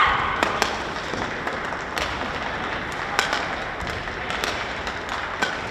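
Clapping from spectators at the end of a badminton rally, with a player's shout at the very start and a few scattered sharp taps on the court.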